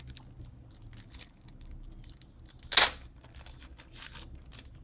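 Handling noises of small items and packaging: scattered short rustles and light clicks, the loudest a sharp rustle about three seconds in.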